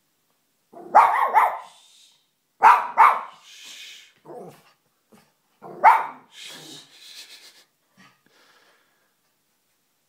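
Small white fluffy dog barking: a few sharp barks, two quick pairs and then a single bark, with quieter sounds between them.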